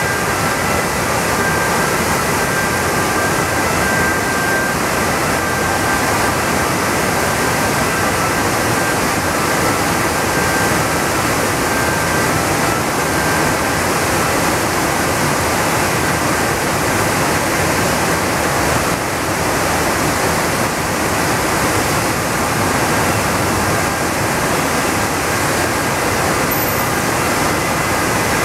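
River water in high spring flow pouring over a wide, low weir: a loud, steady rush of falling and churning water.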